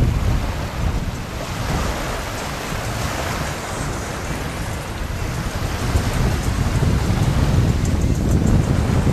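Wind buffeting the microphone over small waves washing onto the shore, a steady rushing noise with no tones. The low wind rumble swells about six seconds in.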